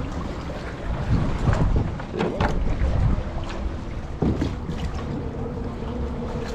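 Wind rumbling on the microphone over water lapping around a plastic kayak, with a few sharp knocks against the hull.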